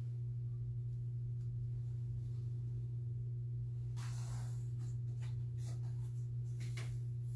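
Steady low electrical hum, with a short rustle about four seconds in and a few light clicks and rustles of handling after it.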